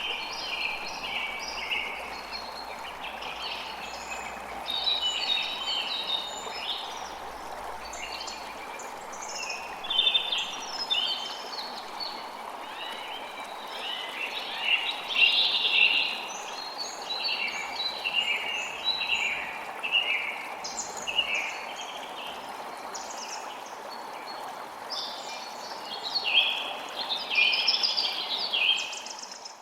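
Many birds chirping and calling in quick, overlapping bursts over a steady rush of flowing water.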